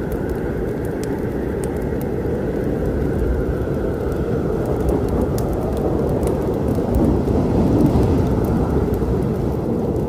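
Thunder rumbling low and continuously over rain, swelling about seven to eight seconds in, with a few small crackles of a wood fire.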